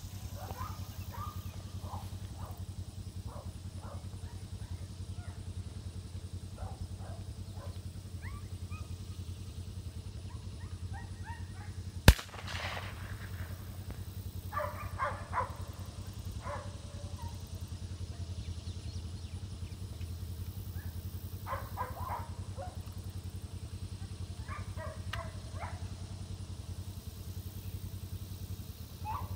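A single shotgun shot, sharp and loud, about twelve seconds in, with a short echo. Short chirping bird calls come and go over a steady low background rumble.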